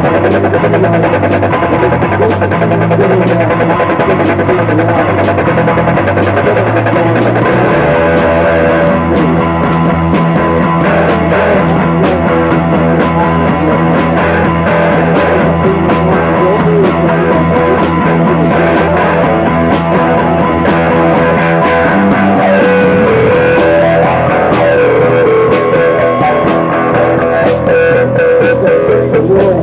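Psychedelic rock played live: electric guitar over a bass line and a drum kit keeping a steady beat, the low notes shifting about 8 seconds in and again near 22 seconds.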